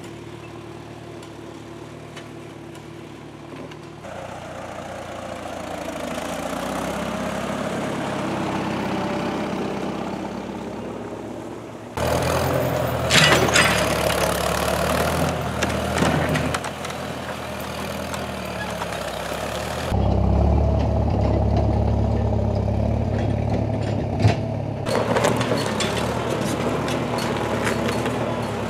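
1951 McCormick International W4 tractor's gasoline engine running while hauling logs and a chained boulder, in several short clips that change abruptly about 4, 12, 20 and 25 seconds in. A few knocks sound in the second clip.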